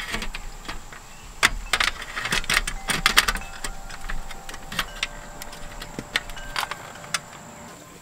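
Clicks and metallic knocks of a 3.5-inch hard drive being fitted and handled in a sheet-metal NVR chassis, its mounting screws going into the chassis slots. The clatter is thickest in the first few seconds and thins out to scattered clicks.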